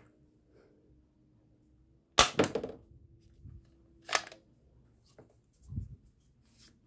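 Plastic toy dart rifle being handled and cocked: a sharp plastic snap about two seconds in followed by a short rattle of clicks, another snap about four seconds in, then small clicks and a dull knock near the end.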